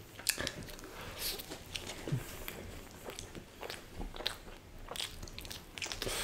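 A person chewing a mouthful of cheese-burst pizza topped with paneer in makhani gravy, close to the microphone: irregular small chewing clicks and crunches.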